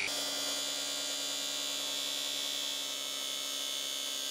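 Electric power tool with a spinning sanding disc running steadily, its motor giving an even whine as the disc works against the vice's metal.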